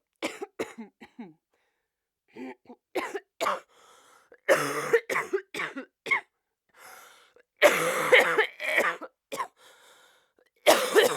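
A person coughing in repeated fits of several short coughs each, with breaths drawn in between. The loudest fits come in the middle and near the end.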